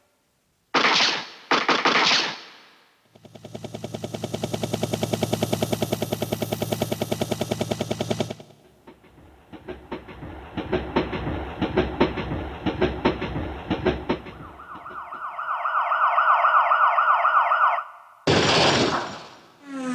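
A string of sound effects played on a Roland E-12 keyboard, one after another. First come two short bursts, then a rapid, even pulsing for about five seconds, then irregular crackling clicks, then a steady wavering tone, and a final short burst near the end.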